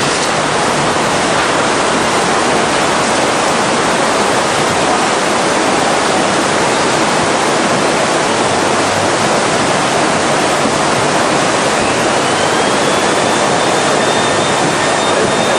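Tsunami floodwater rushing through a street: a loud, steady rush of water. About twelve seconds in, a faint high tone rises and then holds.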